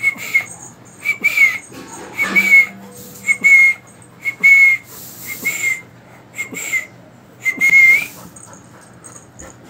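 Labrador retriever whining: about ten short, high-pitched whines in a row, some bending slightly in pitch, the dog asking to be taken out.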